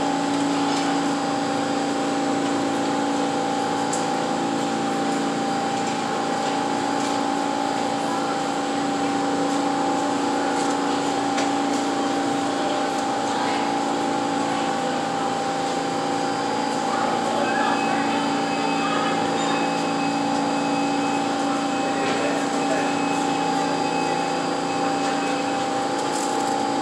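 Subway train standing at a station with its doors open, its onboard equipment giving a steady hum with two held tones, one low and one higher. Faint passenger voices in the background.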